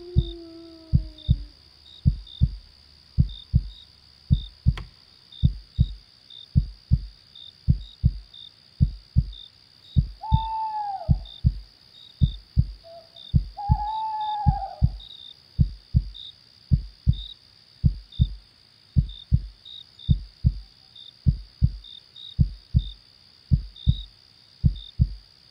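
A heartbeat with a steady paired lub-dub about once a second, over a continuous chorus of crickets. A wolf howl slides down and fades out in the first second and a half, and an owl calls twice, about ten and fourteen seconds in.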